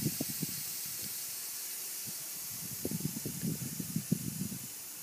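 Air hissing steadily out of a bicycle inner tube as it is deflated, fading slowly, with low crackling handling noise from the tube, strongest about three to four seconds in.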